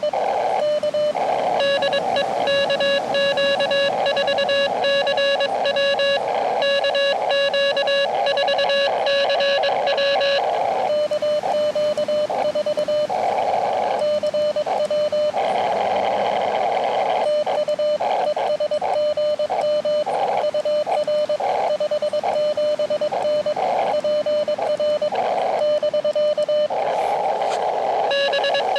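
Morse code (CW) tones from an Elecraft KX2 transceiver: a single steady pitch keyed rapidly on and off in dots and dashes. Patches of narrow receiver hiss fill some of the pauses between characters.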